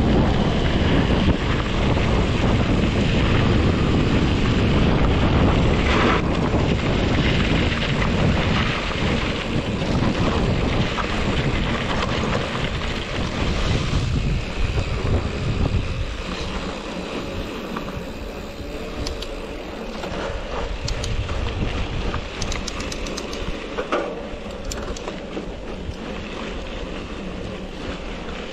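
Wind buffeting the microphone of a camera on a moving mountain bike. It is loud at first and eases off after about sixteen seconds, leaving scattered clicks and rattles.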